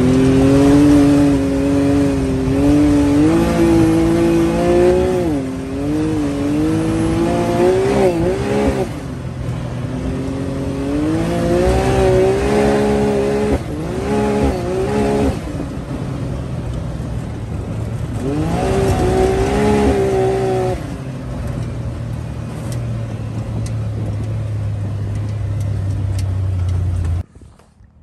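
2022 Can-Am Maverick X3's turbocharged three-cylinder engine with a Yoshimura exhaust, heard from inside the cab while driving, revving up and down again and again. For the last few seconds it settles into a steadier low drone, then cuts off suddenly near the end.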